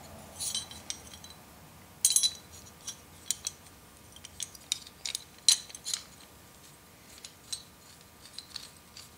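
Metal parts of a Stanley No. 9 1/2 block plane clicking and clinking as the lever cap and its knob are handled and fitted onto the plane. An irregular scatter of light metallic ticks, the loudest about two seconds in and again about five and a half seconds in.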